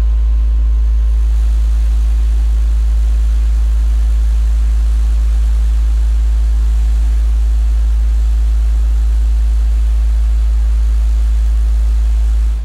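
Car-audio subwoofers playing a steady 54 Hz test tone (a burp) inside a truck, pushed to about 140 dB on the meter, heard as one deep, very loud drone. It cuts off suddenly at the end.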